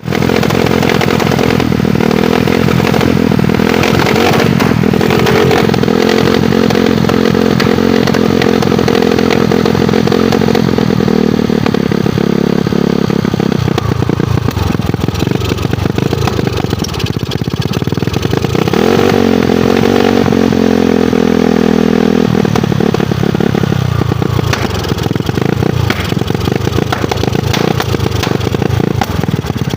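Motorcycle engine running loud through an Apido aftermarket exhaust pipe. It holds a fairly steady pace, with revs rising and falling about two-thirds of the way through.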